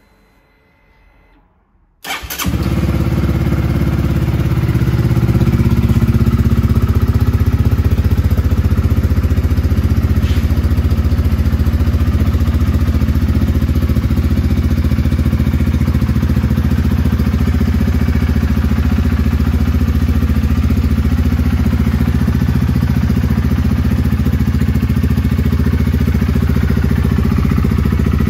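Honda CBR125R's single-cylinder four-stroke engine, fitted with a full Scorpion exhaust, started about two seconds in. It catches at once and then idles steadily.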